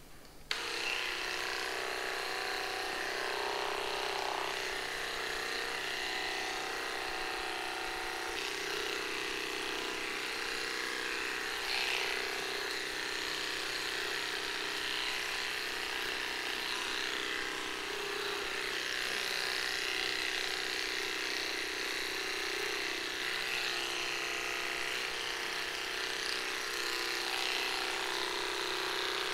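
Cordless electric pet hair clippers switch on about half a second in and run with a steady buzz as they cut through a small dog's coat.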